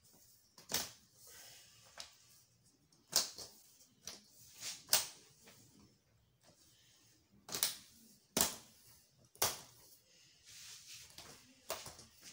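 Plastic clips along the frame of a Samsung LED TV panel being pulled loose: a series of sharp clicks and clacks at irregular intervals, with light rustling of handling between them.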